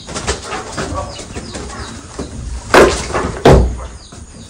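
Long-handled hoe chopping into and scraping loose, packed earth, with small scrapes and falling clods throughout and two heavy strikes less than a second apart about three seconds in.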